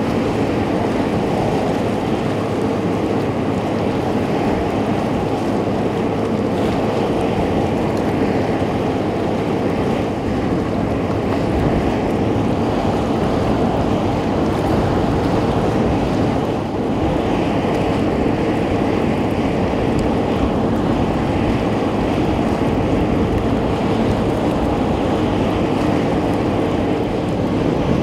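Wind buffeting the microphone over choppy sea, with a steady low hum from the approaching ro-ro passenger ferry Theologos P.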